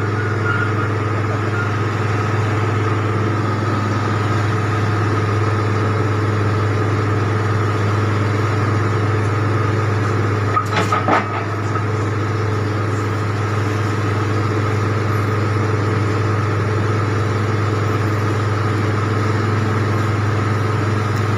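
Casagrande rotary bored-pile drilling rig's diesel engine running steadily under load as the rig drills the pile hole. There is a brief clatter about halfway through.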